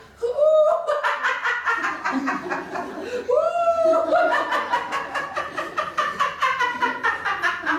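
A woman laughing loudly in rapid, rhythmic bursts, in two long runs, each opening with a rising-then-falling vocal swoop: acted laughter in character as the rabbit.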